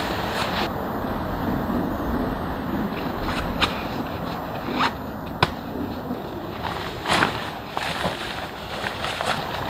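Scattered short rustles and scrapes of a backpack and gear being unpacked by hand, over a steady hiss of wind.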